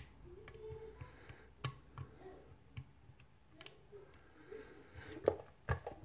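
Faint, irregular metallic clicks and ticks from a homemade pick and a pry-bar tension tool working the pins of a brass mortise cylinder during single-pin picking. The loudest click comes about five seconds in.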